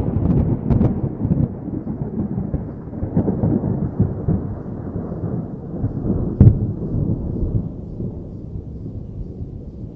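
Thunder sound effect: a long rolling rumble with crackles and a sharp crack about six and a half seconds in, slowly dying away.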